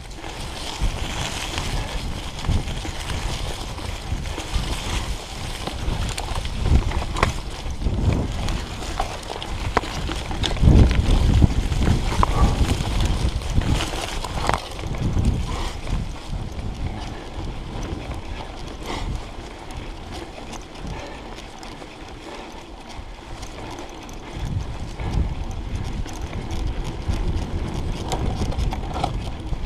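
Mountain bike ridden along a rough dirt trail, heard from a chest-mounted action camera: wind buffets the microphone while the tyres run over the ground and the bike rattles and knocks over bumps. The knocking is heaviest about eleven seconds in and eases off around twenty seconds in.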